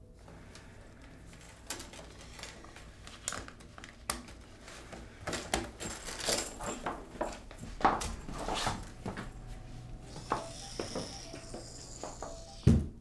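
Small hard objects clicking and clattering as they are handled on a counter, a long run of sharp little knocks. A brief hiss comes late on, then a heavy thud near the end, the restroom door shutting.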